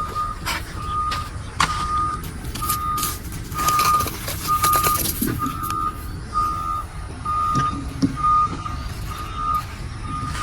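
A vehicle reversing alarm beeping steadily at one pitch, about three beeps every two seconds, over a low rumble with scattered clicks and knocks.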